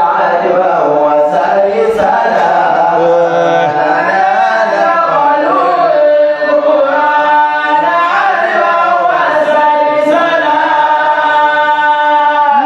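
A man's voice chanting melodically, unaccompanied, in long held notes that waver and glide from pitch to pitch.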